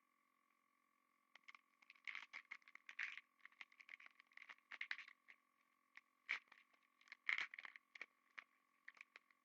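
Faint scraping and clicking of trading cards being handled and flipped, in irregular flurries of short ticks, over a faint steady tone.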